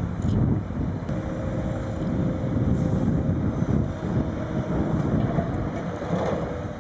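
Heavy diesel machinery running: a steady low engine rumble with some wind noise on the microphone.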